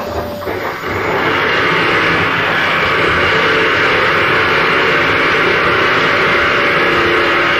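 Loud, dense harsh noise that builds about a second in and then holds steady, with metal being ground into a shower of sparks.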